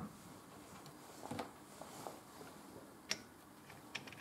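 A few faint, scattered light clicks and taps from the strut top mount and its nut being fitted by hand onto the damper rod of a coil-spring suspension strut.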